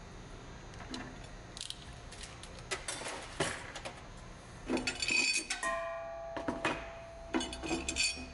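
Metal tools and mounting hardware clinking and clattering against steel brackets under a pickup truck's frame rail as the control board mounting hardware is fitted and tightened with a wrench, in irregular bursts, busiest about five seconds in.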